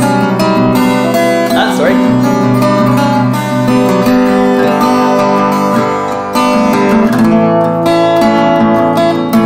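Acoustic guitar in open G tuning, chords strummed and picked and left ringing, playing a B minor variation. The chord changes about four seconds in, and a fresh strum follows just past six seconds.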